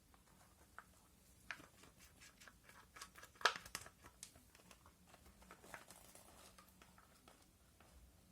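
A run of small clicks, taps and light rustles from small objects being handled, with the sharpest click about three and a half seconds in.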